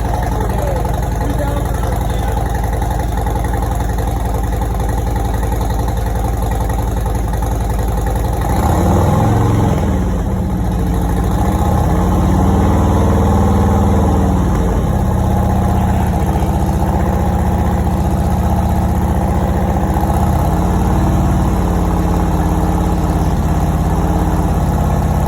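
Harley-Davidson V-twin with a Tab Performance 2-into-2 exhaust and 50-cal mufflers with zombie baffles, running at a steady idle after a cold start, then revved in several throttle blips from about eight seconds in, each rising and falling back to idle.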